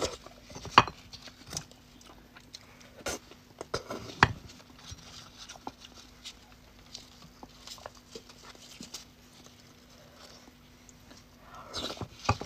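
Close-miked eating of spicy beef bone marrow: scattered mouth smacks and clicks from chewing, loudest in the first second, around three to four seconds in, and again near the end. A faint steady hum runs underneath.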